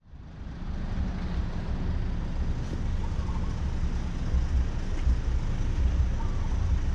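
BMW R1200GS boxer-twin engine running with a steady, pulsing low rumble that fades in over the first second.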